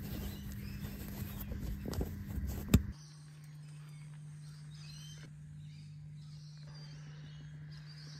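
Rustling and handling of a neoprene seat cover as it is pressed and pulled over a car seat, ending in one sharp click just under three seconds in. After that, quiet outdoor ambience with birds chirping over a steady low hum.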